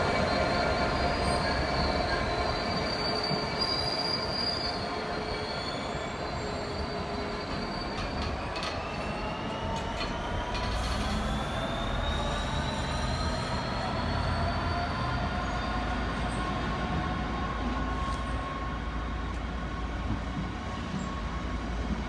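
A train moving through a station, with steady high squealing tones from the wheels over a low rumble. From about eight seconds in, a whine rises gradually in pitch.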